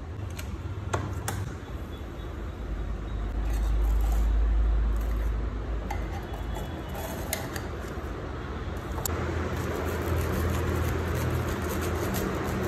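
A few sharp clicks and taps of a knife against an electric contact grill's plates over a steady low rumble, then from about nine seconds in a knife sawing through a grilled sandwich.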